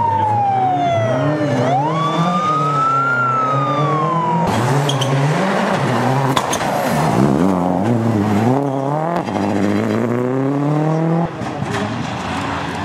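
Rally cars on a tarmac stage. First a BMW E30 course car runs with a siren wailing slowly up and down over its engine. About four seconds in, a Ford Focus WRC's engine revs up and down hard through gear changes, with a few sharp pops. Near the end, another rally car's engine is heard.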